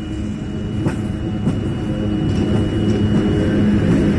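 EU07 electric locomotive hauling a freight train of open wagons, approaching and drawing alongside: a steady low rumble and hum growing louder, with a couple of sharp clicks about a second in.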